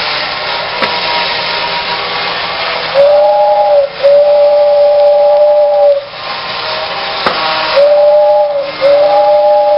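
Vintage Modern Toys Overland Express tin battery-operated toy train running with a steady noisy whirr. Its built-in whistle sounds a two-note toot, a short one then a long one, twice: about 3 seconds in and again about 8 seconds in. A couple of sharp clicks come through the whirr.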